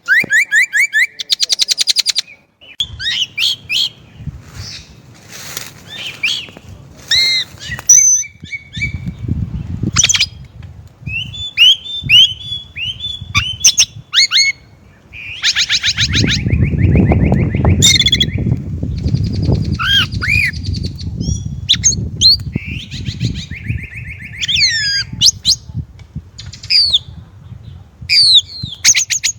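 Chinese blackbirds calling: a busy run of short sharp notes and fast chattering rattles, one after another with few gaps. A low rumbling noise sits underneath for a while about nine seconds in and again from about sixteen to twenty-two seconds.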